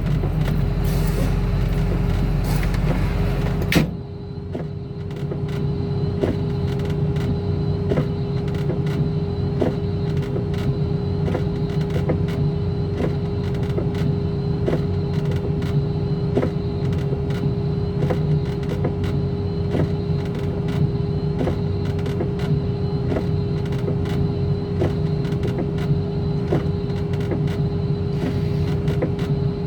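Diesel engine of heavy machinery running steadily, with rain noise over it until a sharp clunk about four seconds in, like a cab door shutting. After that the engine is heard muffled, with a steady hum and faint regular ticks.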